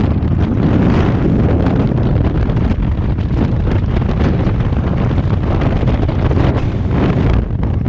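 Loud, steady rush of free-fall airflow buffeting the camera's microphone, dipping briefly near the end.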